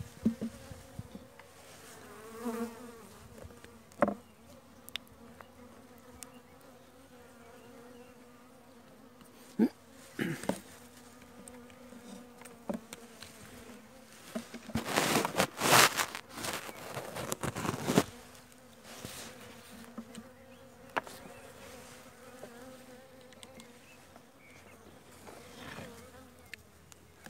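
Honeybees humming around an open hive, a steady buzz with a low drone and its overtone. A few sharp knocks and a louder burst of noise about halfway through break over it.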